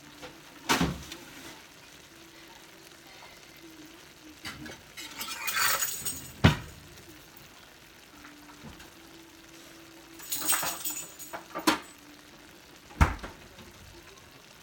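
Kitchen clatter: several sharp knocks and clinks, with two short rattling bursts about five and ten seconds in, over the low sizzle of a chicken and vegetable stir-fry cooking in a stainless skillet.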